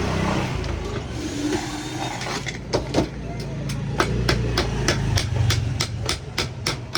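Hammer blows on metal, a few scattered at first, then a steady run of about three strikes a second from about a third of the way in, over a low steady hum.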